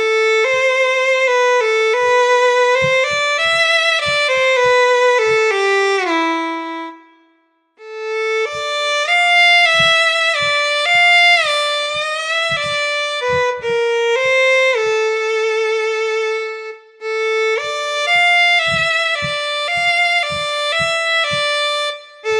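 Physically modelled solo violin (Audio Modeling SWAM Solo Strings v3) playing a slow melody in three phrases with sliding notes and hand-performed vibrato, the vibrato driven by a MIDI ring mapped to pitch bend and the expression by a fader.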